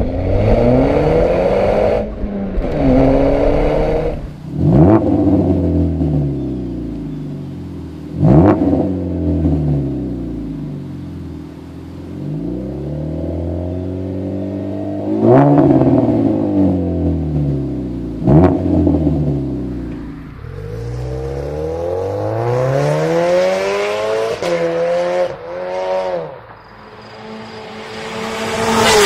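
Modified car exhausts revving repeatedly, one car after another: a B8.5 Audi A4 with a test pipe, then a 2014 Dodge Dart GT with a Heartthrob exhaust. Each rev climbs and falls back every three to four seconds, with a sharp crack at several points, and runs into a quicker string of rising revs near the end.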